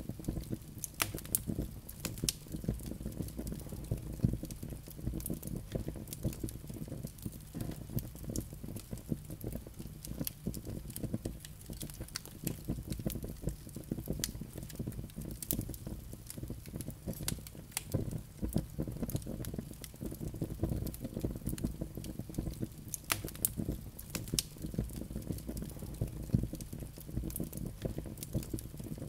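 Wood fire burning in a fireplace: logs crackling with frequent, irregular sharp pops over the steady low sound of the flames.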